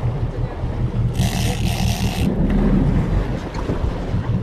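Sportfishing boat's engine running steadily with wind and water rushing past. About a second in, a high hiss starts and stops abruptly after about a second.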